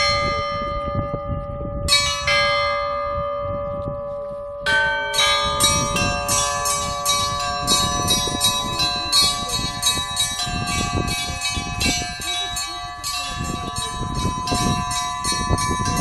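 Church bells ringing. A few separate strokes on the bells come in the first seconds, each left ringing on. From about five seconds in, a quick peal of several bells follows, struck a few times a second, over the steady ring of a larger bell.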